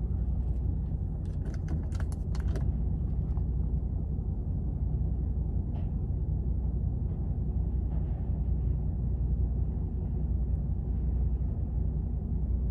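Car engine idling, a steady low rumble heard from inside the cabin, with a short run of sharp clicks about two seconds in.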